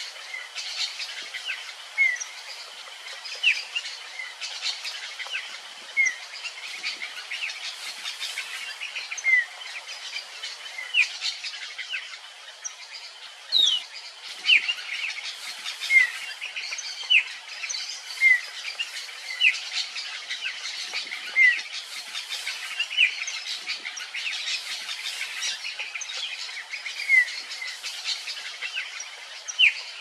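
Many wild birds chirping together, with one bird repeating a short, sharp call roughly once a second.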